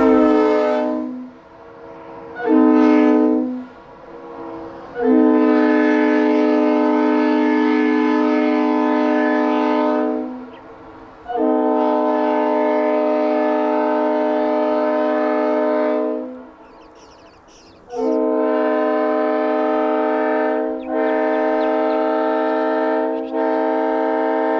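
Leslie RS3L Supertyfon three-chime locomotive air horn (25, 31 and 44 bells) sounding its chord in a series of blasts: one dying away at the start, a short blast, two long blasts of about five seconds each, then a long blast with two brief breaks near the end.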